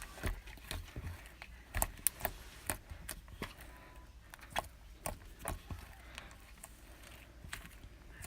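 Homemade butter slime mixed with clay being squeezed and pressed by hand for ASMR, giving many irregular sharp clicks and pops, a few a second. The slime is a crunchy one, full of chunks.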